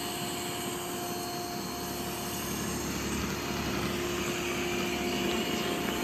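Ecovacs Deebot robot vacuum running at maximum suction as it sweeps and mops a hard floor: a steady hum with a constant tone, rising slightly in level about halfway through.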